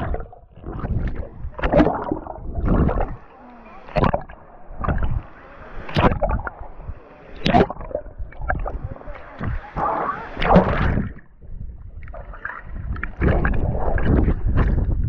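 Water splashing and sloshing close to the microphone in irregular bursts, as a swimmer moves through the water.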